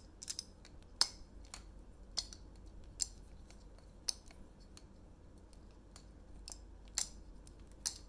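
Clear plastic Squiddy-U clone balisong trainer being flipped: its handles and blade clack together in sharp, irregular clicks, with a pause of a couple of seconds around the middle.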